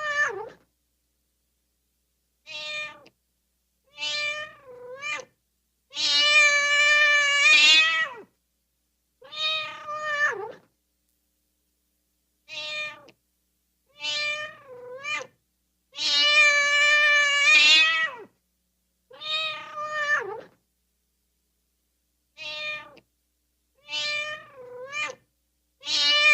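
Domestic cat meowing, a stock sound-effect recording: a short meow, a double meow, a long drawn-out meow and a meow that falls in pitch at the end, with dead silence between calls. The same sequence repeats about every ten seconds.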